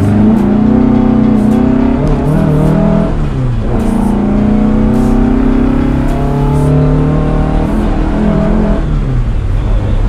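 Exhaust and engine of a VW Beetle fitted with a 2.7-litre Type 4 air-cooled flat-four, heard from inside the cabin under hard acceleration: the note climbs in pitch and drops sharply at each gear change, about four times.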